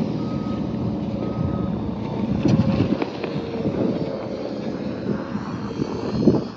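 A heavy vehicle's engine running steadily, its reversing alarm beeping twice in the first couple of seconds, about a second apart.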